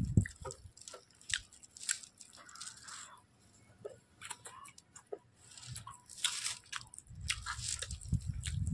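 Close-miked mouth sounds of a person eating spicy Maggi instant noodles: wet chewing with sharp mouth clicks, and a couple of longer slurps as strands are sucked in.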